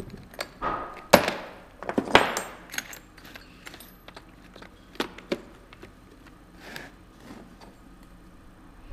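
Metal drill bits clinking and rattling against each other and their plastic case as they are handled, with several sharp clicks and knocks in the first few seconds and again about five seconds in, then only a few faint ticks.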